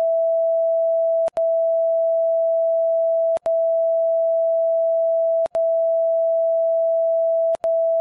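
Colour-bar test tone: a steady, loud electronic beep at one mid pitch that breaks off briefly with a click about every two seconds.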